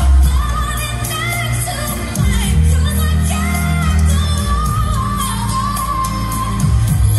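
A pop song with singing, a strong bass line and a steady beat.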